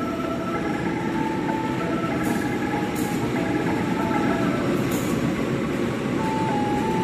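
KAI diesel locomotive pulling slowly into a station, its engine rumbling and growing slowly louder as it approaches. Thin, high squealing tones come and go over the engine sound.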